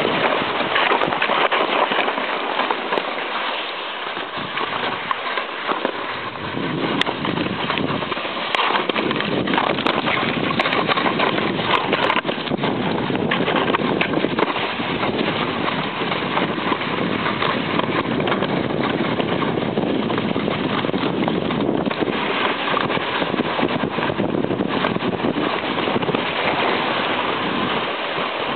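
Sledge sliding fast down a packed-snow road: a steady scraping hiss of the runners on the snow, mixed with wind rushing over the microphone.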